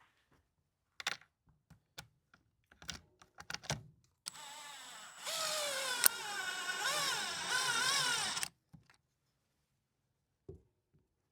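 Handheld power driver running a mounting screw into a chainsaw's recoil starter housing for about four seconds, the motor whine wavering up and down in pitch as the screw binds and pulls in; the binding is something the user puts down to slight cross-threading. Light clicks and taps of handling come before it.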